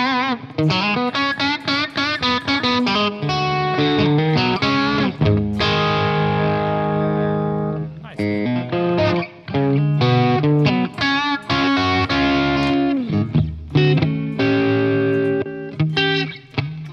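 Telecaster-style electric guitar played through an Origin Effects Revival Drive overdrive pedal into a VHT amp: quick picked notes with vibrato, a chord left ringing for a couple of seconds, then more picked phrases and chords.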